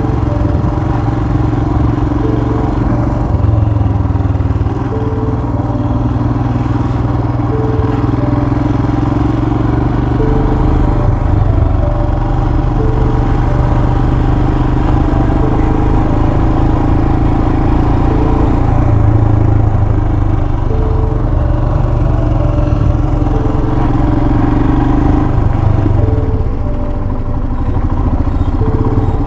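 Motorcycle engine running steadily at low speed while the bike rides over a rough brick road, with some clatter from the bike.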